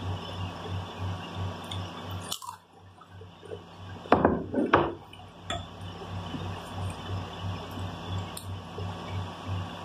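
Chewing sounds from a Flamin' Hot Dorito dipped in onion dip, close to the microphone, loudest about four to five seconds in, over a steady low hum that pulses a few times a second.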